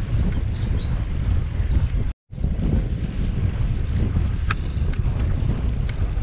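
Wind buffeting the microphone while riding a bicycle, a dense low rumble that cuts out for a moment about two seconds in. Short high chirps sound over it during the first two seconds.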